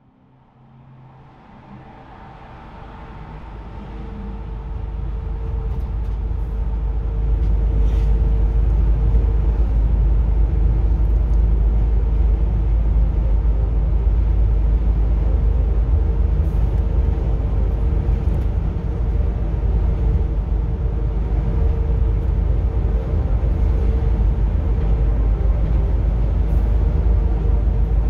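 Steady low road rumble and engine hum inside a bus travelling at highway speed, fading in over the first several seconds.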